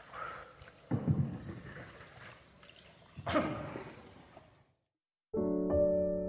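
Paddle strokes splashing in calm water beside a paddled tour boat, two louder strokes about two seconds apart over a steady high hiss. The sound fades out, and after a brief silence near the end, piano music begins.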